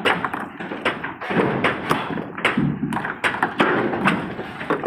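Stone boulders knocking and thudding as they are handled and dropped out of a railway wagon onto a pile of stones, a string of irregular impacts.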